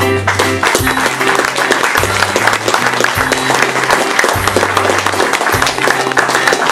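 Theatre audience applauding the actors' bow, over recorded music with a repeating bass line.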